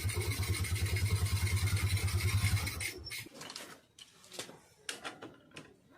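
A low, rapidly pulsing mechanical hum that cuts off about three seconds in, followed by a few light clicks and knocks of metal parts being handled.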